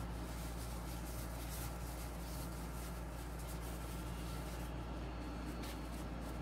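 Steady low hum with faint rustling of disposable plastic gloves as hands press and roll soft cookie dough.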